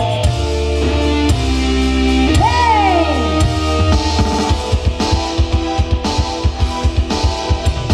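Instrumental band music: sustained keyboard chords with a lead note that slides up and back down, then a steady drum beat coming in about halfway through.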